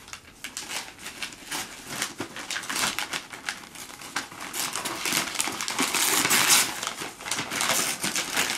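Wrapping paper rustling, crumpling and tearing as a present is unwrapped by hand, loudest and most continuous about five to seven seconds in.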